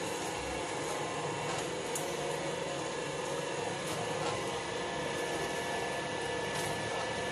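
Small electric screw oil press running steadily while pressing silkworm pupae, its motor and gear drive giving an even hum with a few faint ticks.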